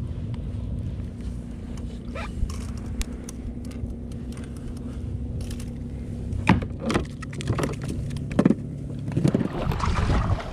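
Scattered clicks and knocks of fishing tackle being handled on a plastic sit-on-top kayak as a kisu (Japanese whiting) is reeled up and lifted aboard, over a steady low rumble with a faint steady hum.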